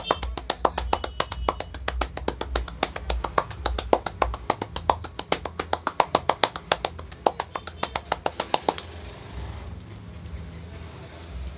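Rapid, even percussive-massage taps from a barber's hands, about six a second. They stop about three-quarters of the way through, over background music with a low beat.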